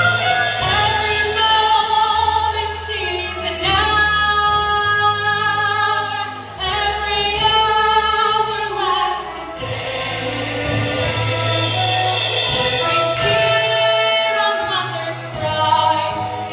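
A musical number: voices singing long held notes over instrumental accompaniment.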